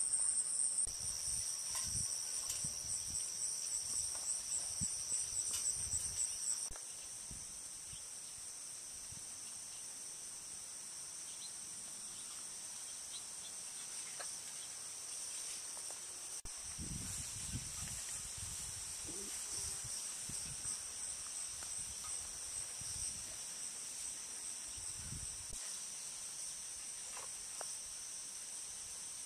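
A late-summer chorus of crickets and other insects, a steady high trilling. A louder pulsing trill stands out over it at first and cuts off about a quarter of the way in, leaving the quieter steady chorus, with a few faint low thumps.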